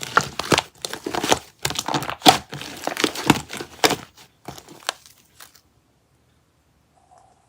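Red clear shaving foam squished and pulled by hand, making dense, irregular crackling and popping. It stops about two-thirds of the way through, leaving near silence with a faint hum near the end.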